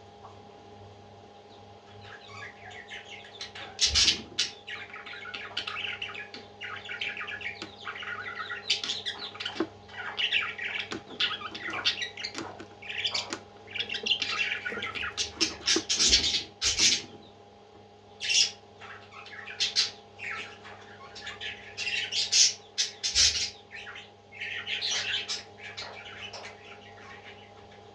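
Baby parrots giving raspy, squawking calls in irregular bursts, over a steady low hum.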